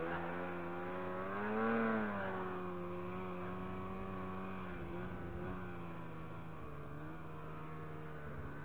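Ski-Doo Summit SKS 146 snowmobile engine under throttle through deep powder. It revs up to a peak about two seconds in, eases back, then holds a steady pitch.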